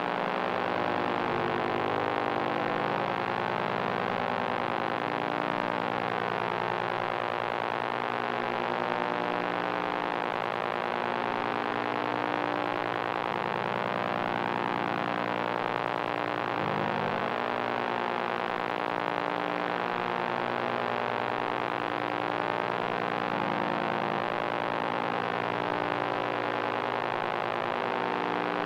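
Electronic noise drone made on analog machines: a dense, steady hum of many layered, pulsing tones over a hiss, even in level, with a brief shift about seventeen seconds in.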